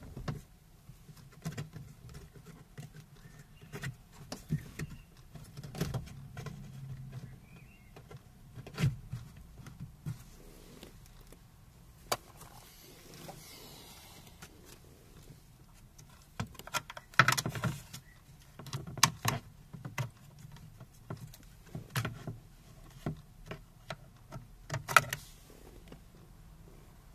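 Plastic car door trim panel being pressed onto the door and handled: a scattered string of clicks, taps and knocks, with a few sharper snaps in the second half.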